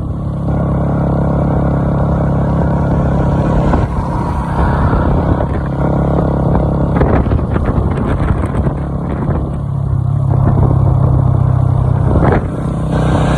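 KTM Duke single-cylinder motorcycle engine running under way, its engine speed shifting a few times, with brief louder flares of noise.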